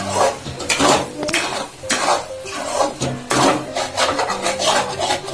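Metal spatula stirring and scraping thick masala gravy around a coated kadai, in rough strokes about twice a second.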